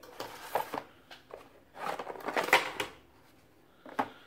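Crinkly plastic packaging and paper being handled, in two spells of rustling, the louder about two and a half seconds in, then a single sharp tap near the end as something is set down on the table.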